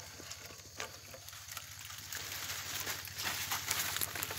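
Leaves, ferns and dry palm fronds rustling, with scattered twig-like crackles and snaps, as a wire-mesh fish trap is dragged up through thick undergrowth. The rustling grows denser about halfway through, over a low steady hum.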